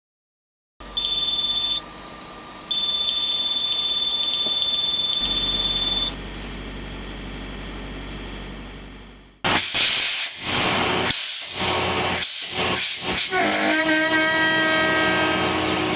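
A steady high-pitched whine sounds twice over a low hum, then a string of loud hissing blasts, and near the end a truck's diesel engine starts running.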